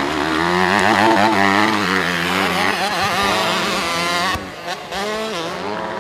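Honda motocross bike's engine revving up and down as it is ridden hard, its pitch rising and falling with the throttle. The sound drops away sharply for a moment about four and a half seconds in.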